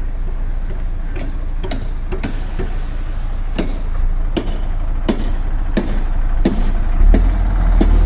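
Concrete pump truck's diesel engine running, with a sharp click about every two-thirds of a second. The engine's low rumble grows louder about seven seconds in.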